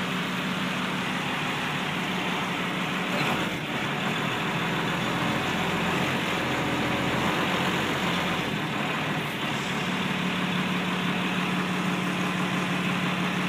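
1992 Blue Bird International school bus's mechanical diesel engine idling steadily just after a cold start, its note dropping deeper for a few seconds in the middle before settling back.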